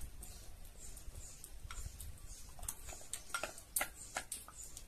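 Light taps and clicks, bunched about three to four seconds in, over faint high chirps and a low rumble.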